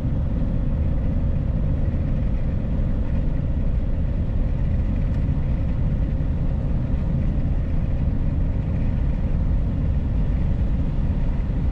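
Van engine and road noise while driving uphill: a steady low rumble with a faint constant hum above it.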